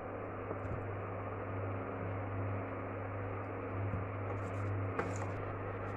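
Induction cooktop humming steadily with its cooling fan running, the hum starting as the power setting is changed. A few light clicks of a spatula against the steel pan as the curry liquid is stirred.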